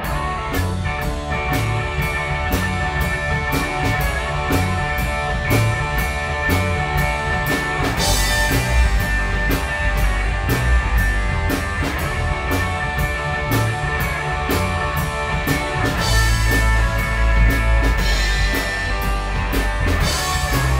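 Live electric blues band playing an instrumental break without vocals: electric guitar over drums keeping a steady beat, with a brighter cymbal wash about eight seconds in and again from about sixteen seconds.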